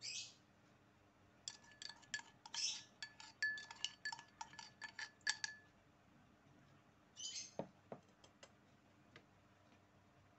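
Granulated sugar hissing out of a drinking glass into a stainless steel bowl. Then a quick run of light glass-and-metal clinks and taps for about four seconds, with a faint ring, as the glass and bowl are handled. A short rustle and a knock come about seven seconds in.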